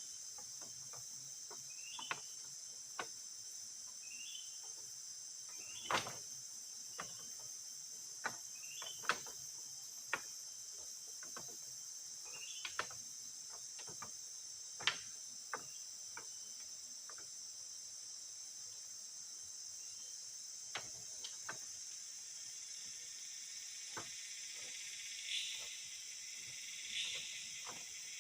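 Forest insect chorus, a steady high-pitched drone, with scattered sharp clicks and knocks and a few short rising chirps. Near the end a louder buzzing insect call pulses three times.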